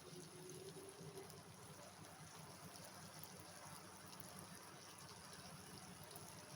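Kajjaya frying in hot oil, a faint steady sizzle with fine crackling, over a low steady hum.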